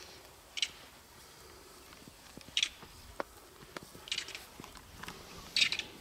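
Leopard padding through long dry grass: short crunching rustles every second or two, the last the loudest, with faint clicks between.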